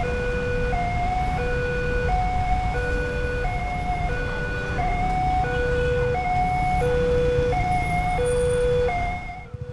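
Railway level-crossing warning alarm sounding a low and a high note in turn, each about three-quarters of a second long, still going as the barrier arms lift. Under it is the low rumble of idling motorcycle and car engines. The sound cuts off abruptly near the end.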